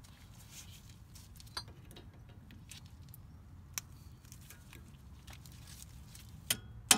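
Faint, scattered small metal clicks and ticks of a cotter pin being pushed through a castle nut on an upper control arm ball joint and bent over with pliers, with a couple of sharper clicks near the end.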